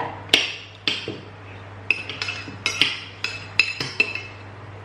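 Metal cutlery clinking against a plate or dish: about a dozen sharp, ringing taps at irregular intervals, over a steady low electrical hum.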